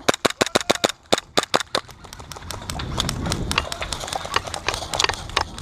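Airsoft gun firing a quick string of about ten shots in the first two seconds, then scattered fainter shots and clicks.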